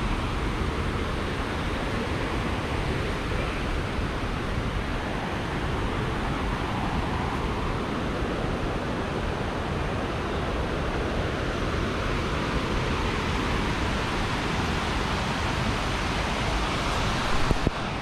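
Steady rush of white water over the rocks of a mountain stream below a waterfall. A couple of brief knocks come near the end.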